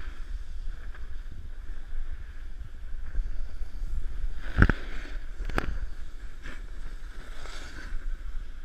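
Wind rumbling on the microphone of a snowboarder's action camera while the board scrapes and hisses over packed snow. Two sharp knocks come about a second apart halfway through.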